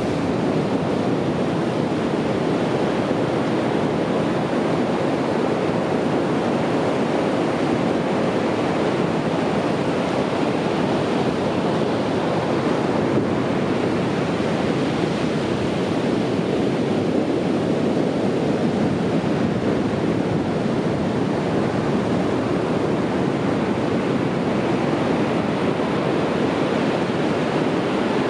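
Ocean surf: a steady, unbroken wash of breaking waves with no distinct single crashes.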